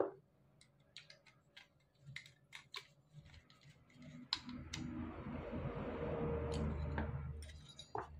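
Small clicks and taps of an amplifier circuit board and its aluminium heatsink being handled, then a louder stretch of rubbing and rustling from about four seconds in, lasting about three seconds.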